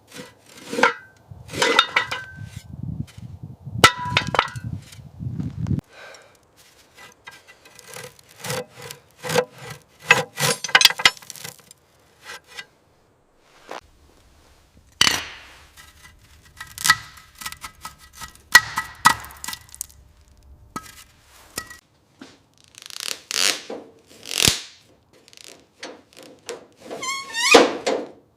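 Hand-tool work: irregular scraping and rubbing strokes with sharp clicks and some briefly ringing clinks, broken by short pauses.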